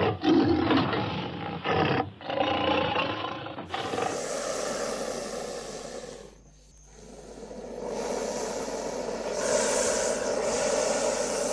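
An animal roaring in several loud calls with short breaks over the first few seconds, then fading out. About eight seconds in a different, noisier and steadier animal or nature sound begins.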